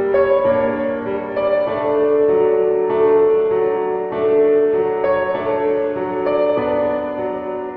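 Background music played on piano, with slow held notes and chords that change about every second.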